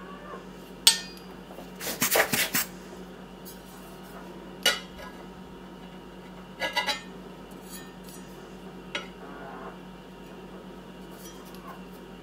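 Steel kitchen knife blade clinking against a ceramic plate: a single knock about a second in, a quick rattle of several around two seconds, and a few more knocks and a short rattle later, over a steady low hum.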